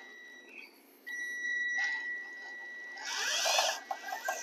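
Cordless drill driving a self-tapping screw into a steel radiator mounting bracket. A high, steady motor whine stops briefly near the start and resumes about a second in. About three seconds in it turns louder and harsher as the screw grinds at the metal; the self-tapper is getting worn down.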